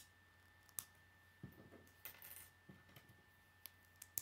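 Lego bricks being handled and pressed together: a few sharp plastic clicks, with soft knocks and a brief rustle about two seconds in.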